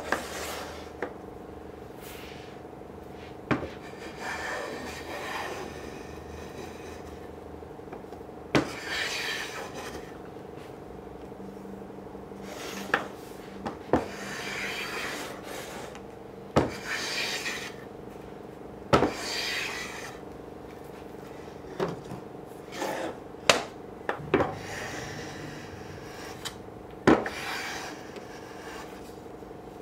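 Small wooden-bodied hand plane taking shavings off the edges of a walnut and white oak serving tray. Short scraping strokes come again and again, with sharp knocks in between as the plane and tray bump the bench.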